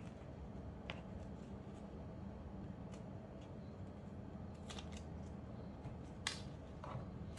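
Dry red onion skin crackling in scattered crisp clicks and snaps as gloved hands peel it, the loudest snap about six seconds in, over a steady low hum.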